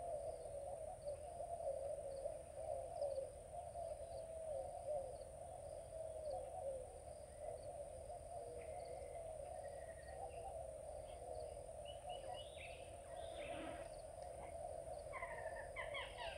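Riverside ambience: a continuous wavering chorus of animal calls, with a steady high-pitched insect drone and short chirps repeating about twice a second. A few brief higher calls come near the end.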